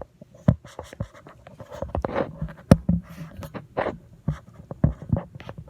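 Handling noise from a phone being moved and propped in place: irregular scraping, rubbing and knocks right against the microphone.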